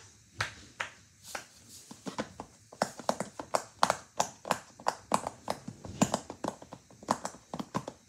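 Silicone pop-it fidget toy having its bubbles pressed: a string of short, soft pops, a few at first, then about four or five a second from about three seconds in.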